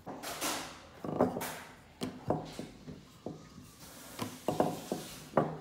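Wooden rolling pin knocking against a silicone baking mat and table while flattening rounds of bun dough: a string of short, irregular wooden knocks, after a soft swishing rub of hands on dough and mat near the start.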